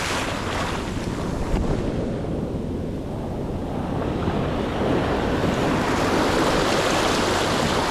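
Ocean surf washing in over the sand: a continuous rush of foamy swash, with wind buffeting the microphone. The wash eases about two seconds in, then builds again from about halfway as the next wave runs up.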